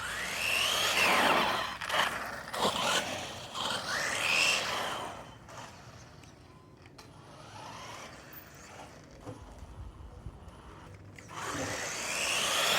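Electric motor and drivetrain of a WLtoys 14229 RC car whining up and down in short throttle bursts as the car is driven, on a half-dead battery. There are several bursts in the first few seconds, a quieter stretch, then a louder run near the end.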